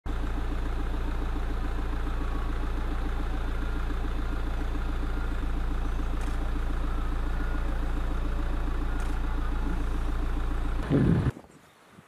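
Steady, engine-like mechanical hum with a fast, even flutter. It swells briefly and then cuts off suddenly about eleven seconds in.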